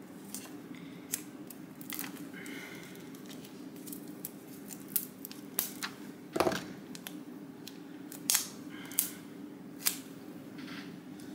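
Scattered sharp clicks and snips of a small hand tool and clear acrylic keychain pieces being handled, over a steady low hum.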